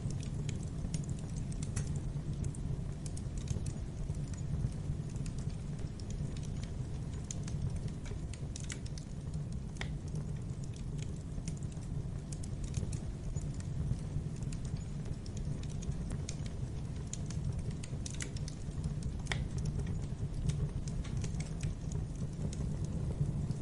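Wood fire burning in a fireplace: a steady low rumble of flames with scattered, irregular crackles and pops.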